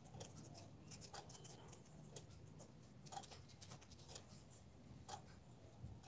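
Near silence with faint, irregular taps and scratches of a finger or stylus working on a phone's touchscreen while erasing.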